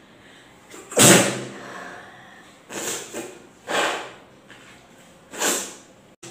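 A woman sneezing hard about a second in, followed by three shorter, quieter bursts of breath near three, four and five and a half seconds.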